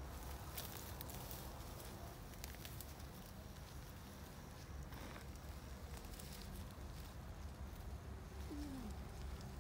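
Faint outdoor background: a steady low rumble with a few faint clicks, and near the end a short, low falling call.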